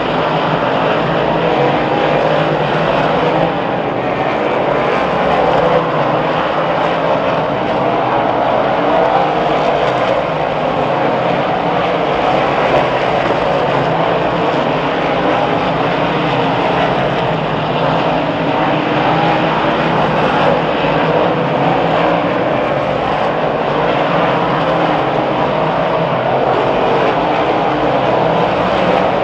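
A field of 358 dirt modified race cars running laps, their small-block V8 engines blending into one loud, steady engine noise with no breaks.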